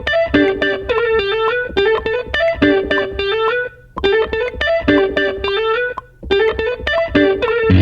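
Instrumental beat: a repeating plucked-string melody over a steady low beat. It briefly cuts out twice.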